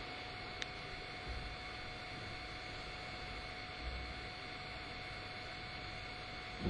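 Quiet room tone: a steady low hiss with a faint electrical hum and whine, broken only by a faint tick and a couple of soft low bumps.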